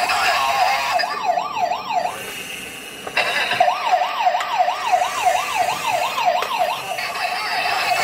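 Toy police car's electronic siren sound effect: a fast wail sweeping up and down about three times a second. It drops away about two seconds in and starts again a second later.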